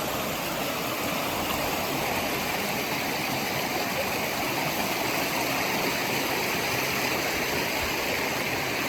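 Waterfall pouring, a steady rushing of falling water.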